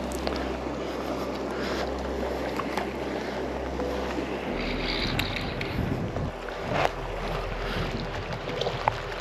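Shallow mountain stream running over stones around a wading angler, a steady rush of moving water, with a couple of short sharp sounds in the second half.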